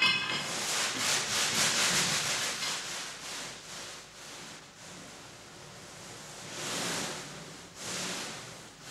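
Rustling and scraping sound effects, like people and sacks shifting about in a freight car. The noise is busiest in the first few seconds, dies down, and swells twice more near the end.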